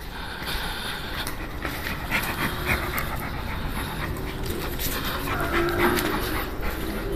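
Pit bull panting steadily, close up.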